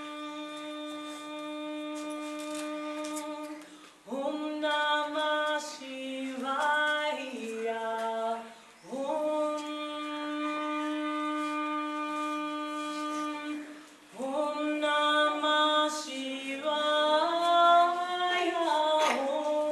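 A woman singing solo without accompaniment, alternating long held notes with phrases that step up and down in pitch, with a short breath about every five seconds.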